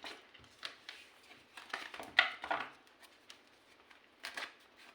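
Tarot cards being handled and laid down on a table: a few short snaps and rustles, the loudest cluster about two seconds in.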